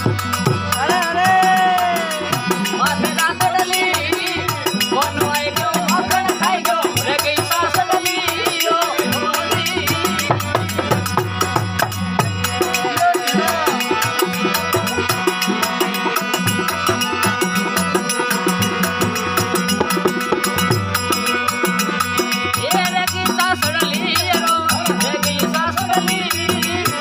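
Folk devotional music with no words: a melody that bends and wavers over steady held notes and a stepping bass line, with fast, even percussion throughout.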